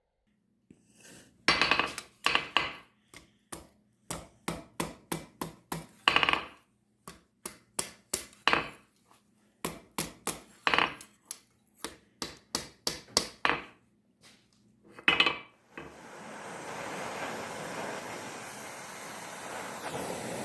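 A blacksmith's hammer striking steel on the anvil, a long uneven series of sharp, ringing blows, some in quick runs. About three-quarters of the way through the blows stop and a steady rushing noise starts.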